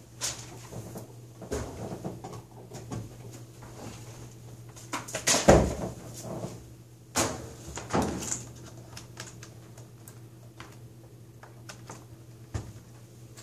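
Scattered knocks and clicks of hands handling things on a desk, the loudest a little past the middle, and a sharp click near the end as a power cord plug is pushed into the laptop. A low steady hum runs underneath.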